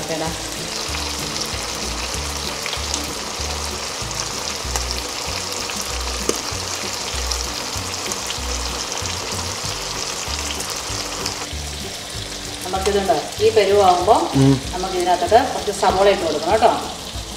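Pork frying in a pan in its own rendered fat and masala as the cooking liquid boils off: a steady sizzling hiss. A voice talks over it from about three-quarters of the way in.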